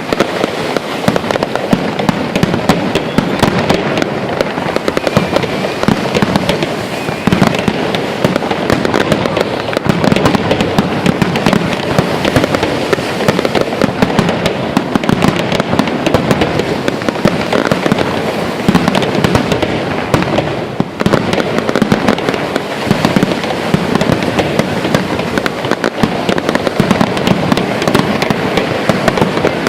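Fireworks going off in a dense, continuous barrage of rapid bangs and crackles, with only a brief lull about twenty-one seconds in.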